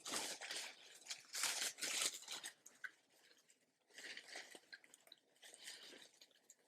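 Close-up eating sounds: crunchy bites and chewing in four short bursts, the loudest about one and a half to two seconds in.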